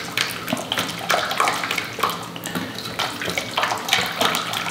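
Silicone-coated wire whisk beating thin liquid gravy in a stainless steel saucepan: quick, repeated sloshing and splashing strokes, several a second, as the beef-stock mixture is whisked smooth.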